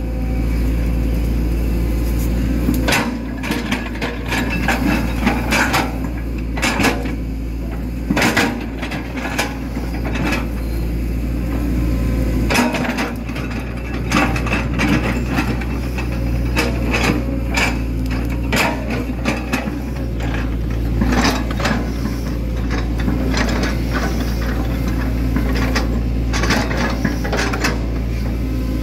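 Hitachi Zaxis 110 excavator's diesel engine running steadily under hydraulic load, its level shifting a few times as the boom and bucket move, heard from the operator's cab. Over it come frequent irregular clacks and knocks as the bucket scrapes and smooths the mud of a levee slope.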